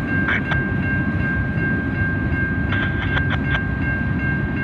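A freight train of covered hopper cars rolling past at close range, its wheels on the rails making a steady low rumble. A steady high-pitched tone sounds over it, and a few short clicks come about three seconds in.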